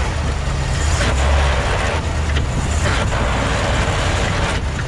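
Pickup truck driving, heard from a camera under the chassis: a steady, loud low rumble of drivetrain and road noise.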